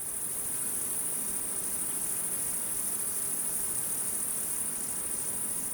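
Crickets chirping: a steady, high-pitched chirring that runs on after the music stops.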